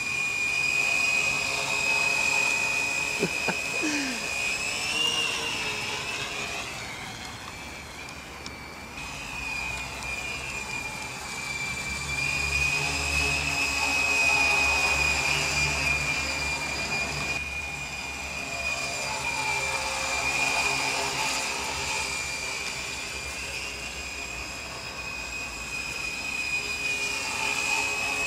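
Mini tricopter's three 18 g brushless motors spinning 7x6 slowfly props, a steady high-pitched whine whose pitch wavers slightly as it manoeuvres. It grows louder and fades several times as the craft flies toward and away from the listener.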